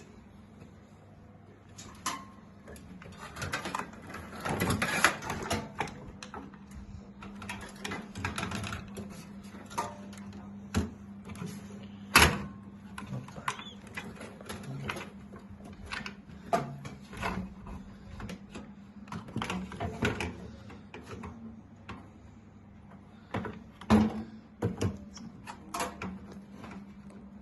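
Irregular clicks, knocks and scraping of hardware being handled as a motherboard is fitted into a PC case, over a steady low hum. The sharpest knock comes about twelve seconds in.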